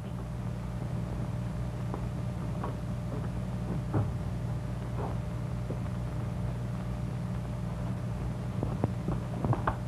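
Steady low hum of an old optical film soundtrack, with a few faint knocks and clicks scattered through it.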